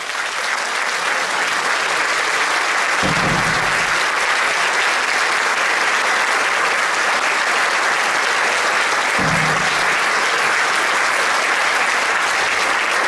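Audience applauding steadily at the end of a folk music number.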